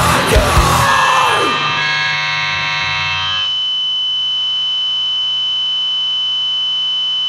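Distorted electric guitar feedback ringing out as a grindcore song ends. The drums and bass stop about a second in, leaving a steady high-pitched whine, and the low hum under it drops away about three and a half seconds in.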